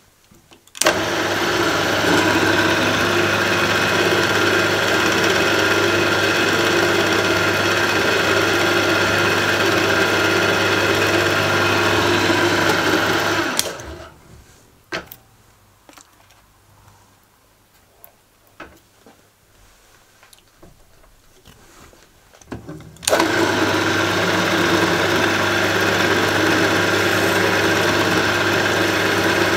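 Milling machine spindle motor running steadily with a small drill in the chuck, for drilling holes in a brass bezel. It is switched off about 13 seconds in and winds down, a few light clicks and knocks follow, and it starts again about 23 seconds in.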